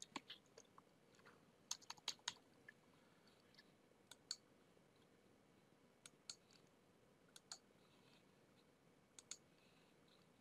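Faint clicks of a computer mouse and keyboard against near silence: a quick run of keystrokes about two seconds in, then short clicks, mostly in pairs a few tenths of a second apart, every second or two.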